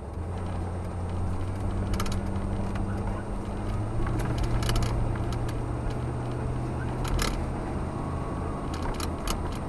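1990 Ford F-150's 302 (5.0 L) V8 running as the truck is driven, heard inside the cab; the engine note rises a little about four seconds in. A few sharp clicks sound at intervals over it.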